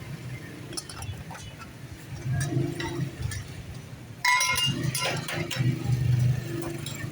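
Street-food stall ambience: a steady low hum with scattered metal clinks. About four seconds in it jumps louder, with a short pitched call and more clinking.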